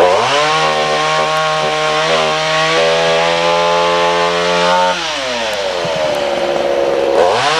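Two-stroke chainsaw run up to full throttle and held steady for about five seconds while cutting wood, then dropping back to idle, with one more short rev near the end.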